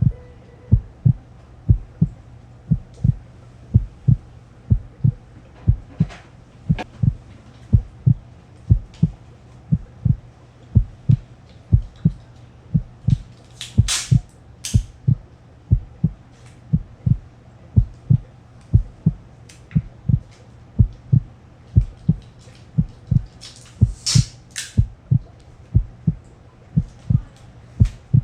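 A heartbeat sound effect, a low thump about twice a second that keeps the same pace throughout. Two brief rustling noises cut through it, one about halfway and one near the end.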